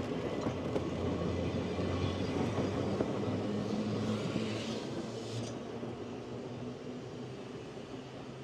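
Manx Electric Railway tram car 20 pulling away: a low hum and rumble of its motors and wheels on the rails, fading steadily from about halfway through as it runs off into the distance.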